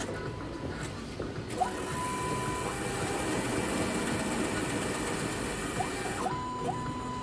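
Motorized drive of a DLT OptiTronic Auto 1200 tile cutter running steadily with an even whir, starting about a second and a half in and cutting off abruptly near the end.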